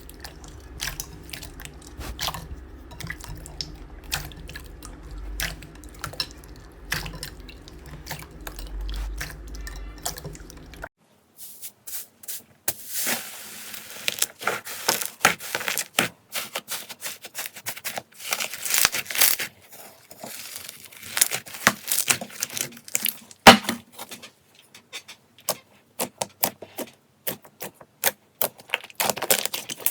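Slime being squeezed and poked by hand, making irregular sticky crackles, pops and squelches. The sound changes about 11 seconds in, where a low background hum drops out and the crackling gets louder.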